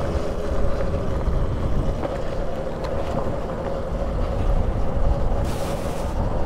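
Motorcycle engine running steadily under way on a rough dirt road, with a continuous low rumble of road and wind noise on the microphone. There is a brief rise in hiss about five and a half seconds in.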